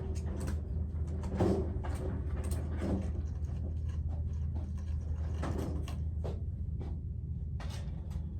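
Scattered short knocks and clicks of things being handled, over a steady low hum.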